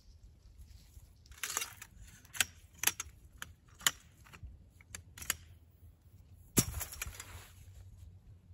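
Sharp clicks and clacks of a folding metal camp frame being handled and snapped together, about seven in quick succession, then one louder knock about six and a half seconds in, followed by a brief rustle.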